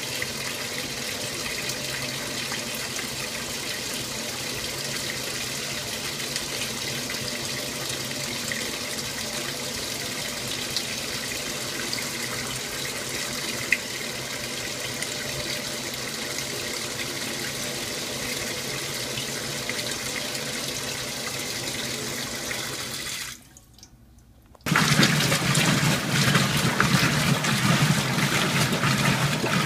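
Water pouring into the tub of an old Magic Chef top-load washing machine as it fills, a steady splashing stream. Near the end it stops, and after a short near-silent gap the machine starts agitating: louder water sloshing with a low motor hum.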